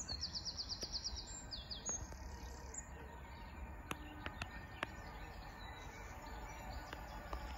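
A songbird giving a quick run of high chirps, about eight in a second and a half, then a few more notes, over a faint steady low rumble; a few light clicks follow.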